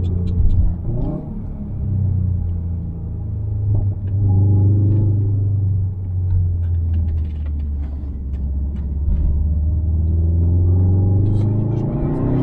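Subaru WRX STi's tuned, turbocharged EJ257 2.5-litre boxer engine, heard onboard through a muffler-delete exhaust, its revs falling and rising several times between corners. Crackling pops from the exhaust come on the overrun, a run of them a little past the middle and more near the end.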